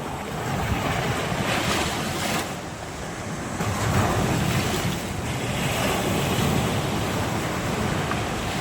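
Sea waves surging and washing in, swelling loud twice.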